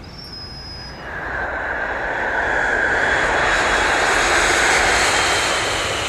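Jet airliner on landing approach: the jet engine noise swells in about a second in and builds to a steady loud roar, easing slightly near the end.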